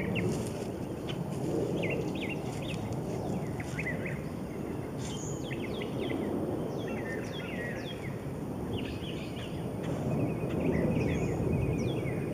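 Backyard songbirds chirping and twittering in many short, quick calls, over a steady low rumble of outdoor background noise.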